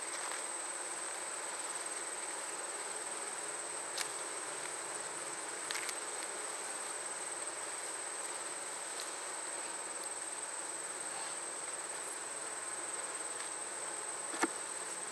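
Honey bees buzzing steadily around an open hive, over a constant high-pitched tone. A few short clicks and knocks of frames and tools, the loudest near the end.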